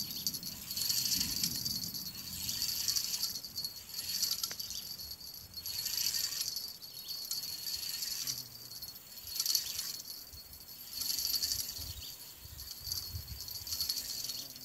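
Fishing reel being cranked in repeated spells of about a second each, a high whirring gear sound every second or two as the angler pumps the bamboo rod and winds in a hooked fish.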